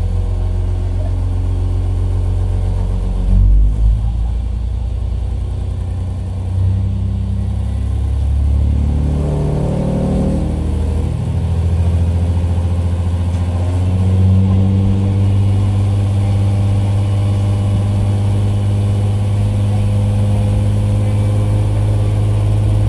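Diesel engine of an IRT355 railcar, a 355-horsepower unit, pulling the train away and accelerating. Its note changes in steps and glides several times as it picks up speed.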